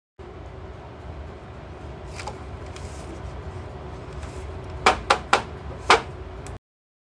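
A steady low hum with a faint held tone, broken near the end by four sharp clicks or knocks, three in quick succession and a fourth about half a second later.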